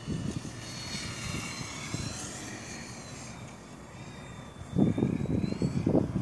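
Electric motor and propeller of a ParkZone Focke-Wulf 190A-8 radio-control model plane flying past, a high whine whose pitch dips a little partway through and rises again near the end. Gusts of wind buffet the microphone near the end.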